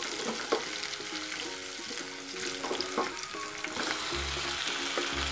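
Onion and chopped tomato sizzling in hot oil in a stainless-steel pan, stirred with a spatula that clicks and scrapes against the pan now and then. A soft melody plays underneath.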